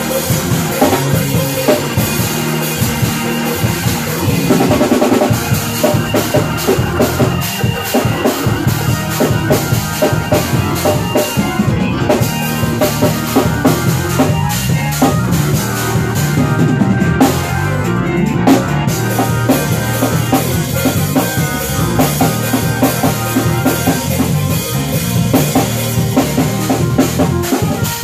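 A live church band jamming: a drum kit plays busy strokes of kick, snare and rimshots over sustained bass and organ chords.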